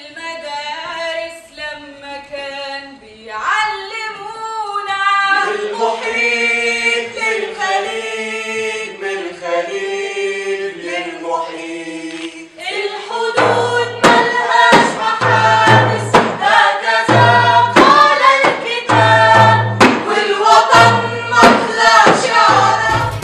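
A group of voices singing together without instruments. About thirteen seconds in, a deep, regular beat joins roughly every two seconds and the singing grows louder.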